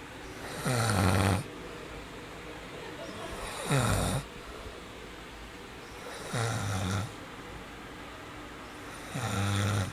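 Loud, rhythmic snoring: four snores, one every two and a half to three seconds, each lasting under a second.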